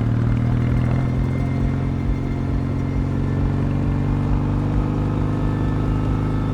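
Kawasaki W650 parallel-twin motorcycle engine running at a steady cruising pitch while riding.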